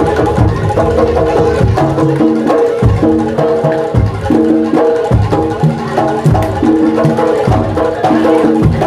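Live jaranan music for a kuda lumping dance, played loud through a sound system: drums and tuned percussion keep a steady beat under repeating melodic figures.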